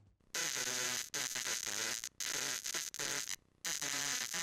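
A man's voice coming through a crude homemade Arduino and nRF24 walkie-talkie, buried in loud hiss and buzzing static and broken into choppy stretches with brief dropouts. The transmission is so bad that the words can't be made out.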